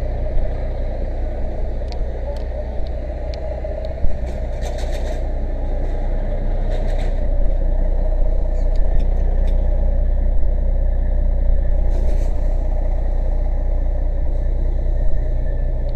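Fire engine's motor running steadily with a low, even drone. Scattered light clicks and knocks sound over it, most of them from about two seconds in to five seconds, and again near twelve seconds.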